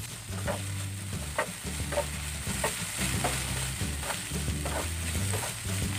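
Chopped okra frying in a little oil in a non-stick pan, hissing softly, while a wooden spatula stirs and scrapes it in short strokes about twice a second.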